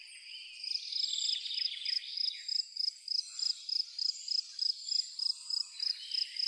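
Nature ambience: a high chirp repeating evenly about three to four times a second, with softer bird twittering over it for the first two seconds or so.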